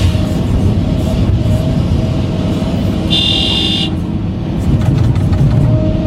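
Excavator engine running loudly and steadily, with a short high beep about three seconds in.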